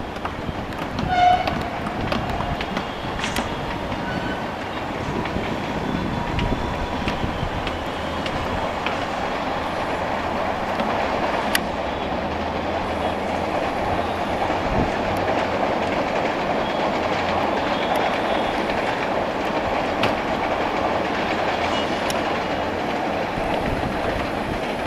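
Vande Bharat Express electric train set passing: a short blast of its horn about a second in, then the steady rush and clatter of the coaches' wheels on the rails, building slightly and holding.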